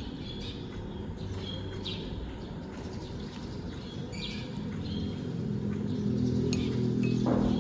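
A few scattered short bird chirps over a low steady hum that grows louder in the second half.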